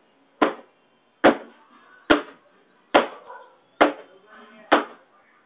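Evenly paced sharp knocks, six of them a little under a second apart, each dying away quickly.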